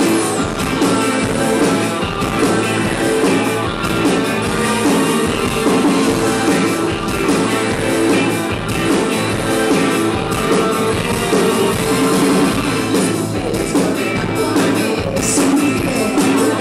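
Live rock band playing loudly, with electric guitar and electronic keyboard.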